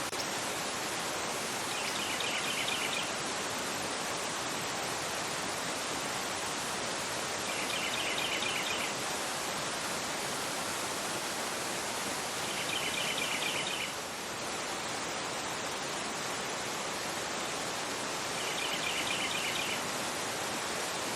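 Fast-flowing river rushing over a rocky bed, a steady full hiss of water. A bird's short, rapid trill repeats four times, about every six seconds.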